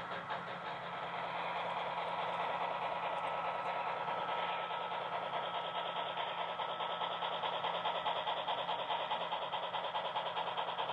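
HO scale model of a Southern Pacific cab-forward steam locomotive running past with its train, giving a fast, even pulsing over a steady low hum.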